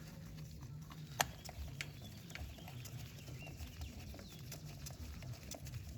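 Small metallic clicks and taps from bolts and a tool being handled while the oil filter cover bolts are refitted, with one sharper click about a second in, over a low steady hum.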